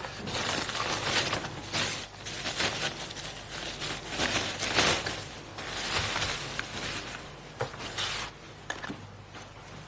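Irregular rustling and clattering with scattered clicks, as of objects being handled.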